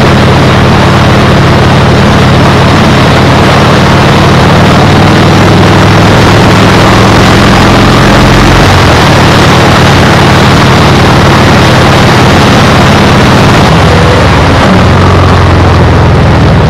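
Loud, steady wind noise buffeting the action camera's microphone while riding, with a low engine drone underneath.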